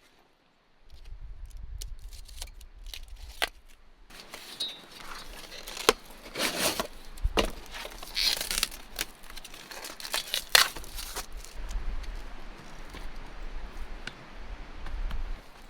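Close rustling and crinkling, broken by scattered sharp clicks and knocks, over a low rumble.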